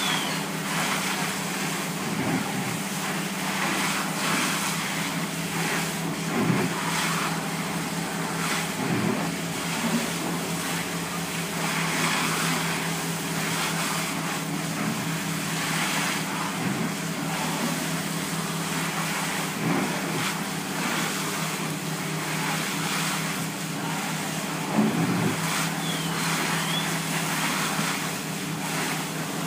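Steady drone of a fire engine's engine running its pump, under the hiss of a hose stream spraying water onto a smouldering car's engine compartment. The spray noise swells and dips as the nozzle moves.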